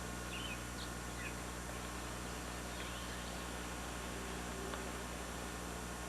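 A few faint, short bird chirps, mostly in the first second and a half and once more around three seconds in, over a steady hiss and low hum.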